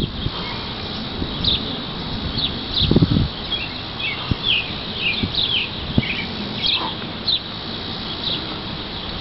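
Birds chirping outdoors, short high calls sweeping downward, about one or two a second. A brief low rumble comes about three seconds in, and there are a couple of faint knocks.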